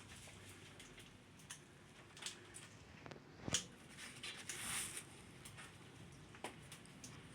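Parrots moving about at close quarters: scattered soft clicks and taps, a louder knock about three and a half seconds in, and a brief hiss near the middle.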